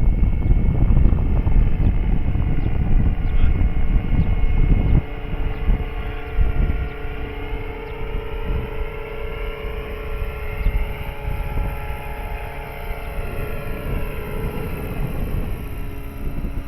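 Large electric RC scale helicopter (BK117 model) in flight: a steady motor and rotor whine whose pitch bends up and down as it passes. For about the first five seconds heavy wind buffeting on the microphone covers it, then stops abruptly.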